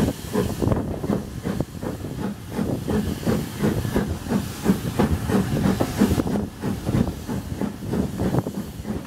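Steam train hauled by S&DJR 7F 2-8-0 No. 53809 running along the line, heard from a carriage window: a steady hiss of steam with a quick, even beat.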